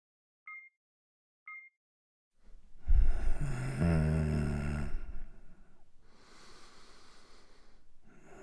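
Two short electronic beeps, then a man snoring heavily: a loud noisy inhale with a low buzzing drone starting about two and a half seconds in, followed by a quieter, breathy exhale.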